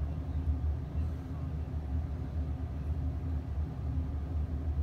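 Steady low rumble with a faint hum, with no drum strikes or cymbals sounding.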